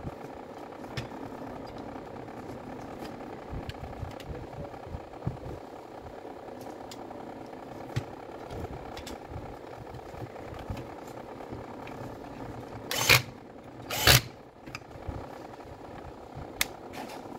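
Light clicks and knocks of plastic and metal parts being handled as an orbital sander's motor, fan and housing are fitted together, with two louder, brief scraping bursts about 13 and 14 seconds in. A steady engine-like drone runs underneath.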